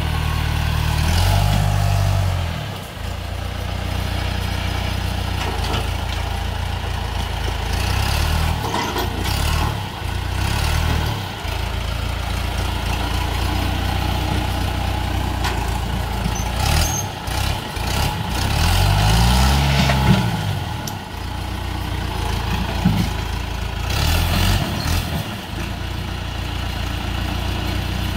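A 68-horsepower John Deere diesel tractor engine running, its speed rising and falling several times, with the longest rev-up and drop-back about twenty seconds in.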